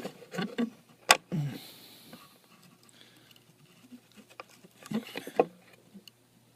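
Handling noise from a phone and bench items being moved: scattered clicks and knocks, the loudest a sharp click about a second in, with a few more around five seconds in.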